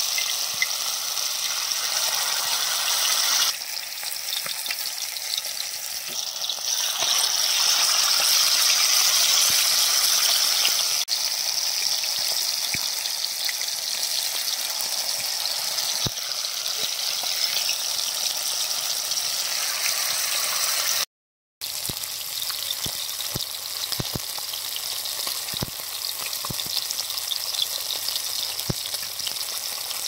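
Spice-coated parrot fish pieces deep-frying in hot oil in a shallow iron pan: a steady, high sizzling hiss. It cuts out for a split second about two-thirds of the way through.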